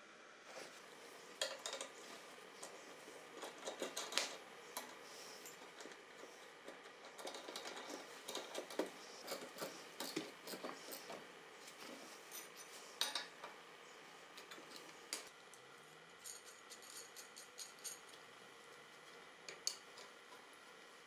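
Steel rod-end joints, nuts and a steel tie rod clinking and tapping as they are handled and fitted to a steering arm at the wheel hub, in irregular, scattered knocks. About sixteen seconds in there is a short run of quick, light clicks.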